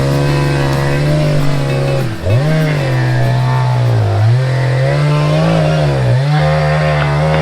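Echo CS590 59cc two-stroke chainsaw held at full throttle while cutting through a large popple (aspen) trunk, most likely the felling back cut. Its pitch sags under load about two, four and six seconds in, and picks back up each time.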